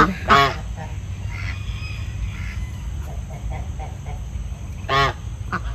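Domestic ducks and geese calling: a few soft calls, then one loud, clear call about five seconds in and a shorter one just after.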